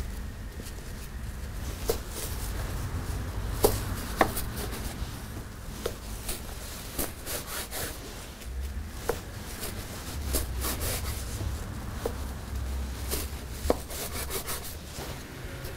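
Chef's knife slicing through a slab of sticky homemade marshmallow on a plastic cutting board, the blade tapping on the board at irregular intervals with soft rubbing strokes between.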